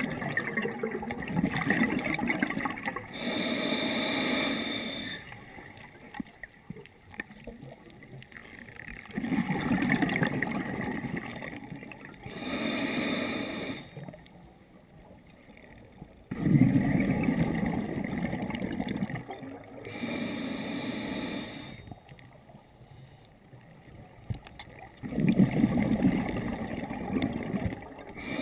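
A scuba diver breathing through a regulator underwater: long bubbling exhalations, each followed by a shorter hissing inhalation through the demand valve, in a slow cycle about every eight seconds, four times over.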